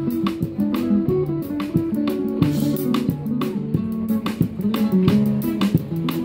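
Nylon-string classical guitar playing a melodic cover song, with a drummer keeping time on snare drum and cymbal in steady, regular hits.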